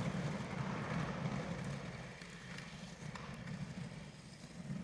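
A small car driving through snow on rear tires studded with drilled-in screws. There is a low engine drone under the rough noise of the studded tires on the snow, easing off in the middle and building again near the end.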